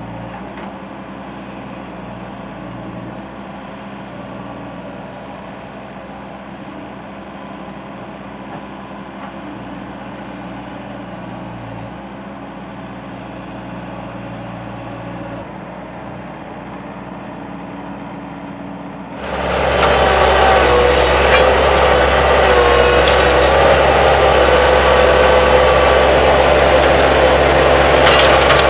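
Skid steer loader engine running steadily, then suddenly much louder and fuller about two-thirds of the way in.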